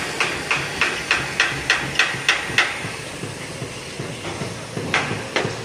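Repeated hammer strikes on a building site, about three a second for the first couple of seconds, then a pause and a few more blows near the end, over a steady background hiss of site noise.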